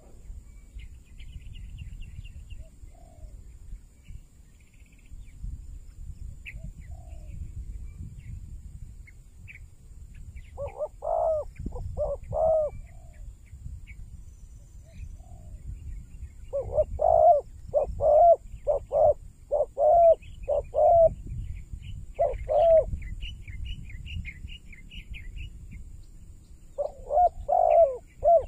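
Spotted dove cooing in repeated phrases of short, deep notes, several groups of them, loudest in the middle of the stretch, with small birds chirping faintly.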